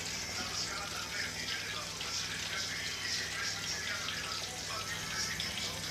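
Aubergine slices frying in hot oil in a pan, a steady sizzle with scattered crackles.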